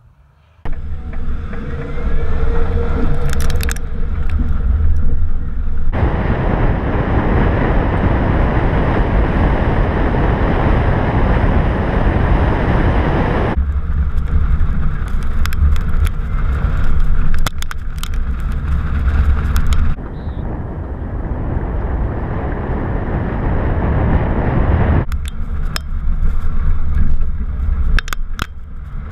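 Tyre rumble and wind buffeting of a 2004 Pontiac Grand Prix GTP driven fast on a gravel dirt road, picked up close to its front wheel, with loose stones clicking and pinging against the body. The sound changes abruptly several times.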